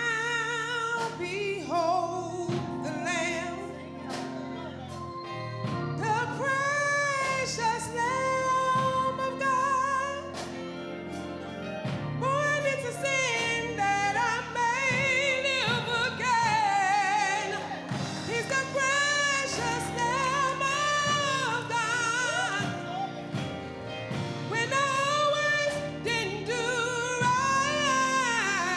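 Gospel music: a singing voice with strong vibrato over sustained low instrumental chords and sharp percussive hits.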